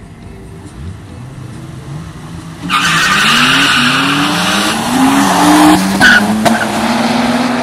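Toyota Supra Mk3 3.0 turbo and BMW E30 335 drag-race launch: engines revving at the line, then a sudden loud burst of tyre squeal and engine noise about three seconds in as the cars pull away. The engine pitch climbs, drops briefly at a gear change, and climbs again.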